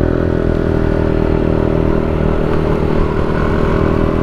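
Motorcycle engine running at a steady pace while riding, with wind rumbling on the microphone.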